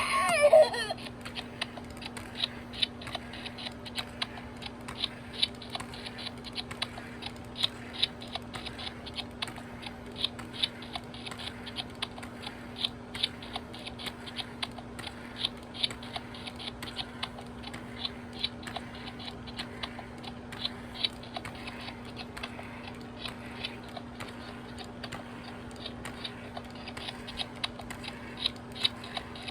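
A Dil Pickles talking doll's recorded baby voice trails off in the first second. Then come irregular light clicks and taps, several a second, over a steady low hum.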